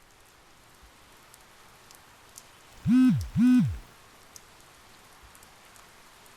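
Steady light rain with scattered faint drop ticks. About three seconds in, a phone vibrates twice in quick succession, each buzz spinning up and winding down: a text message arriving.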